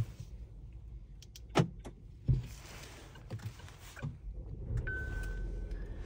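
A few sharp clicks in the car cabin, then the Geely Atlas Pro's engine starting about four and a half seconds in and settling into a low idle hum. A single steady beep sounds for about a second near the end.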